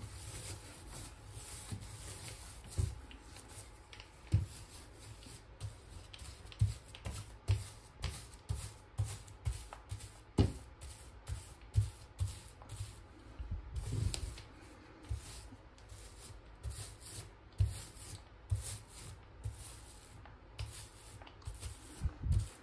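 Small 1/4-inch nap paint roller on a bare wire frame being pushed back and forth over a bathtub wall, laying on thin two-part tub-and-tile coating. It gives a repeated rubbing, sanding-like hiss with a soft low thump on many strokes, about one to two a second.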